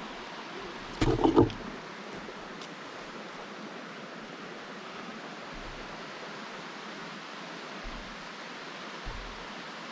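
Steady rushing of a woodland creek. About a second in there is a brief, much louder burst lasting about half a second.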